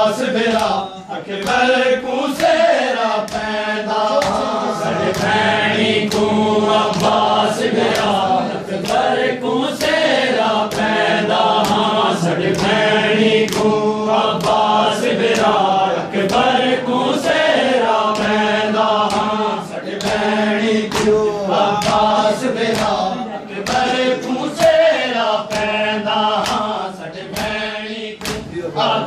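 A group of men chanting a Muharram lament (nauha) together, with the slaps of their hands beating their chests (matam) in a steady beat, in time with the chant.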